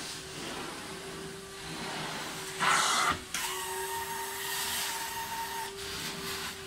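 Carpet-cleaning extractor's vacuum running steadily with a constant hum as the extraction wand is drawn across the carpet. About three seconds in there is a short, loud hiss, and after it a thin higher whistle joins the hum for a couple of seconds.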